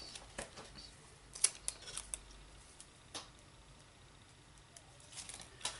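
A roll of glue dots being handled and a dot taken off for a paper box's flaps: a few small sharp clicks and light rustling, clustered about a second and a half in, once more around three seconds and again near the end.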